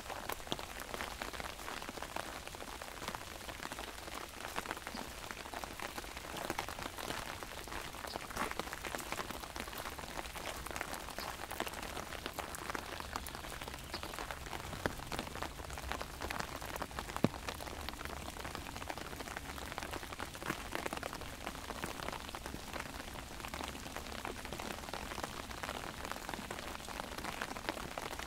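Rain falling on an umbrella: a dense, steady patter of drops, with one sharper tap a little past halfway.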